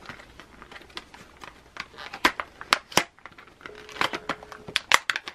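Crinkling and rustling with many sharp small clicks, as objects and packaging are handled. A faint brief hum sounds a little before the end.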